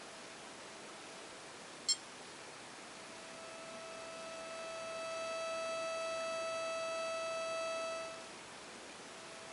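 Electric drive of a Tamiya Scania R620 RC truck under an Axial speed controller: a steady high-pitched whine of one fixed pitch, which swells from about three seconds in and drops back near the end. A single short click sounds about two seconds in.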